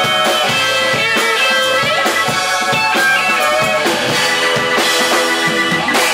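Live band playing instrumental mod jazz-rock: Nord Electro 3 keyboard, electric guitar, electric bass and drum kit, with a steady beat.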